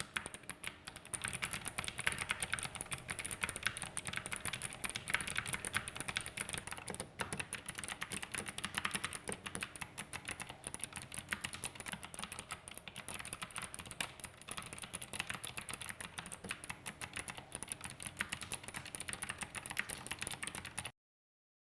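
Fast, continuous typing on an ABKO Icecube gaming keyboard with Kailh optical clicky switches and clear ice-cube-style keycaps, many key clicks a second, stopping abruptly near the end.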